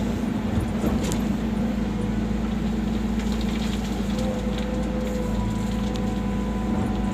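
Volvo excavator's diesel engine running steadily, with a faint steady whine above the drone and a short knock about a second in.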